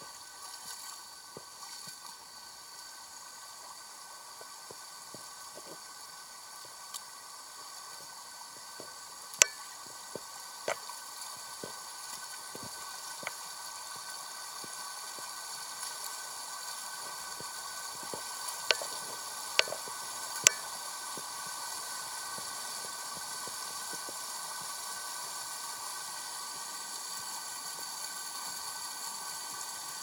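Shallow mountain stream running over rocks, a steady rush of water that grows slowly louder, with scattered sharp clicks and splashes from wading in the stream, the loudest a few strikes around the middle.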